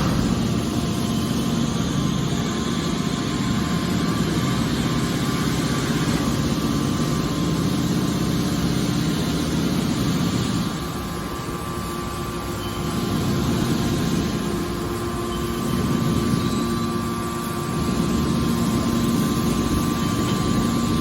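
Hydraulic scrap metal baler running, a steady machine drone with a low hum and held tones, easing briefly about halfway through before picking up again.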